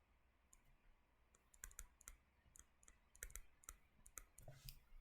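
Faint, irregular clicking: short sharp clicks, often in pairs or small clusters, with a denser run from about three seconds in, over near-silent room tone.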